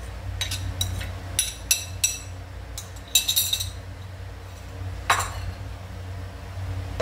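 A plate clinking and scraping against the rim of an aluminium cooking pot as chillies are tipped in: a quick run of sharp clinks in the first half, one more about five seconds in, over a steady low hum.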